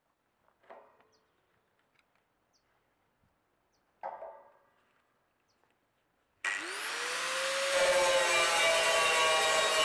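Angle grinder switched on about two-thirds of the way in, its whine rising as the motor spins up. Its cut-off disc then bites into a galvanized steel C-profile with a loud, steady grinding. Before that there is near silence, broken only by two brief faint knocks.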